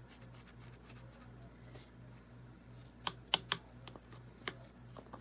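Wooden craft stick working paint in a thin plastic cup and knocking against the cup: faint light ticks at first, then a few sharp clicks about three seconds in.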